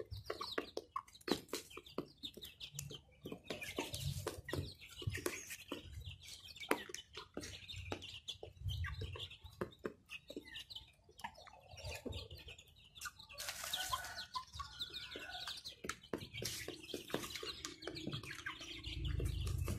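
Half-grown chicks pecking feed off cardboard: a patter of quick sharp taps, with soft chirps and clucks. A low rumble comes in near the end.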